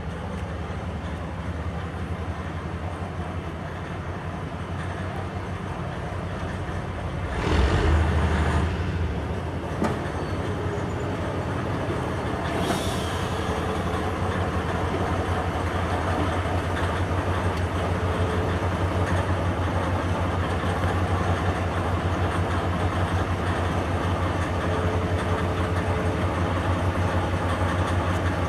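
Plymouth switcher locomotive's engine running with a steady low hum as it pulls a caboose up and stands idling. A brief loud rush of noise comes about seven and a half seconds in, and a short high hiss near thirteen seconds.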